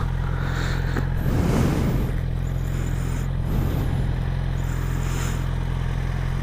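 An engine idling: a steady, even low drone that holds unchanged throughout.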